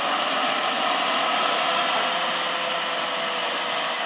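Model gas-turbine engine (PHT3) of a large-scale Agusta A-109 RC helicopter running, with the helicopter on the ground and its main rotor turning: a steady jet-like hiss with a thin high whine over it.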